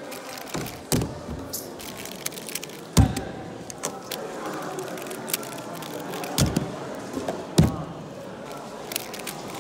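Steady background din broken by a handful of sharp knocks, the loudest about three seconds in.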